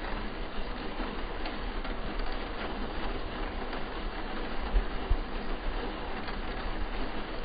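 Steady rumbling noise of a city bus arriving at a stop, with two low thumps about five seconds in.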